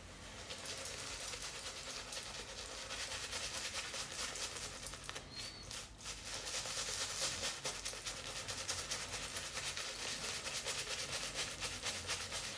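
Manchurian badger shaving brush working shaving-soap lather on the face: a steady soft hissing crackle of the brush swirling against the skin.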